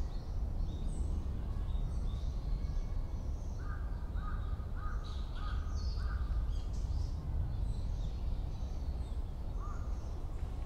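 Outdoor nature ambience: a steady low rumble with small birds chirping, and a bird calling five times in a row, about half a second apart, midway through.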